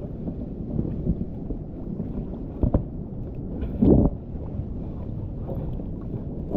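Wind rumbling on the microphone over sea water sloshing around an inner-tube float, with two louder thumps a little over a second apart near the middle.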